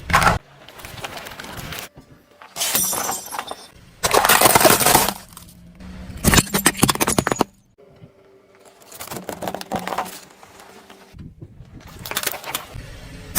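Objects being crushed under a car's tyre: several separate bursts of cracking and crunching breakage, each lasting about a second, with abrupt cuts between them.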